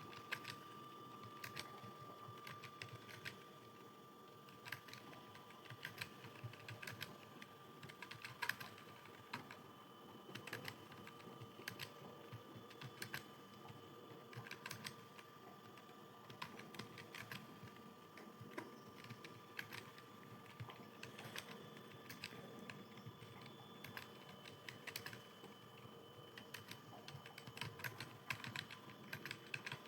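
Computer keyboard being typed on: irregular key clicks, a few per second, during a Hindi typing test, over a faint steady tone.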